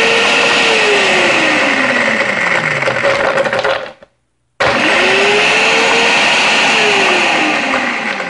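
Dash Chef Series blender on its crush program chopping ice: the motor runs loud, its pitch climbing, holding, then sliding down. It cuts out for about half a second about four seconds in, then starts again with the same rise and fall, the program's automatic stop-start pulsing.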